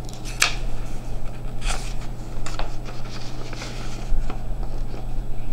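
Paper sheets rustling as picture cards are handled on a table: several short, separate rustles over a steady low hum.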